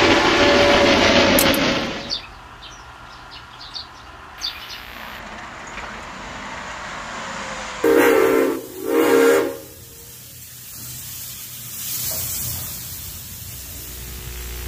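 Steam locomotive whistle blowing a long chord that cuts off about two seconds in, followed by a quieter steam hiss with faint clicks. Two short whistle blasts sound about eight seconds in.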